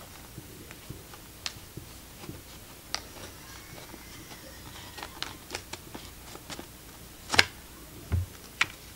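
A pocket knife slitting a cardboard box open, with small clicks and scrapes as the box is handled. A sharp knock comes about seven seconds in, followed by a low thump.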